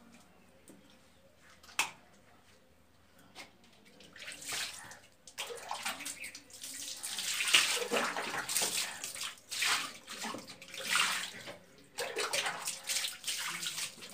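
Water scooped from a bucket with a plastic mug and poured over soapy feet, splashing onto a tiled floor in repeated bursts from about four seconds in. Before that it is quiet, with a single click about two seconds in.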